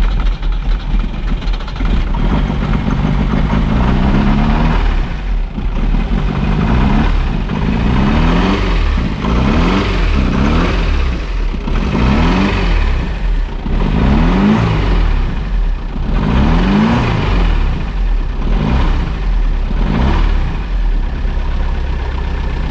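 Car engine revved over and over in short blips, each one a quick rise in pitch, about a dozen times over a steady running rumble.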